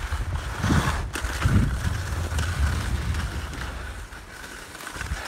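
Sliding downhill over packed snow: a steady scraping hiss, with wind rumbling on the microphone. It eases off a little about four seconds in.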